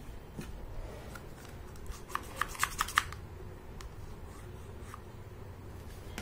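Plastic toy syringe being handled, its hard plastic parts clicking: a quick run of about six sharp clicks around two to three seconds in, with a few softer taps before and after.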